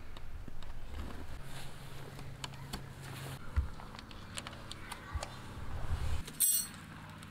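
Tent poles being fitted to a Coleman Sundome dome tent: pole tips pushed into the corner rings and clips hooked onto the poles, giving a run of small scattered clicks and handling noise, with a sharper snap about six and a half seconds in.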